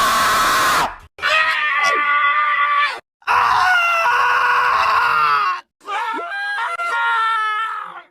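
Angry cartoon-character yells and screams, clips cut one after another: about four shrill screams, each one to two and a half seconds long, with short silent breaks between them.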